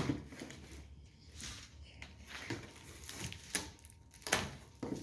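Cardboard box packaging being cut open and handled: a few scattered knocks and scrapes over a low rustle.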